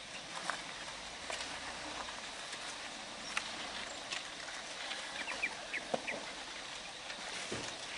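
Outdoor ambience: a steady background hiss with scattered faint clicks and knocks, and a few short bird-like chirps about five seconds in.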